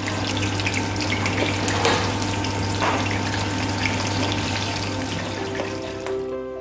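Raw meat pieces sizzling and crackling in hot oil in a frying pan, over a steady low hum. The sizzle cuts off shortly before the end.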